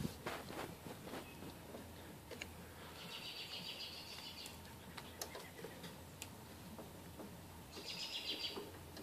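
Two short, high bird trills, each about a second long, several seconds apart, over light clicks and taps of a hand tool on the mower.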